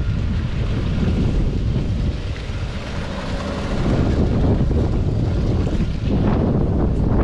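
Wind buffeting the microphone: a loud, steady low rumble, with a few short knocks near the end.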